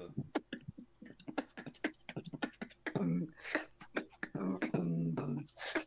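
A man beatboxing: quick sharp mouth clicks and snare-like hisses, broken up by short hummed bass notes.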